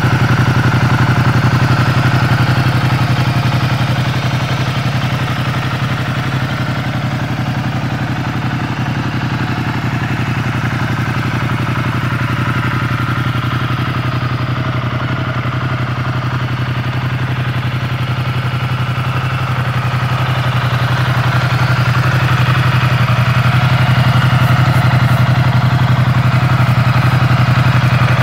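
Ducati Multistrada 1200's L-twin engine idling steadily, a little quieter partway through and louder again toward the end.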